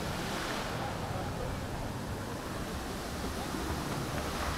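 Steady rushing noise with a low rumble: wind on the microphone of a camera carried on a moving bicycle, over city street background.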